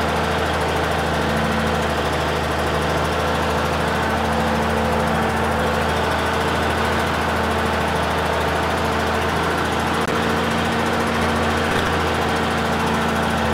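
Diesel engine of a 1950s Euclid off-road dump truck running steadily as the truck drives, heard from inside the cab.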